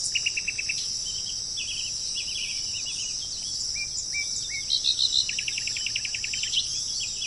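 Wild birds chirping and trilling over a steady high-pitched insect drone. About five seconds in, one bird gives a fast run of clipped notes lasting over a second.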